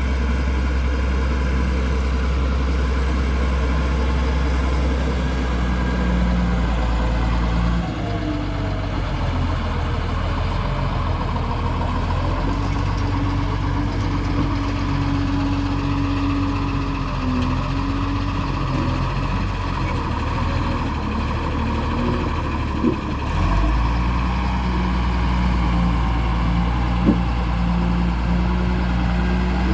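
Caterpillar 140G motor grader's six-cylinder diesel engine running steadily while the grader works its blade through dirt. The engine note changes about eight seconds in and settles back near the end, with two short knocks late on.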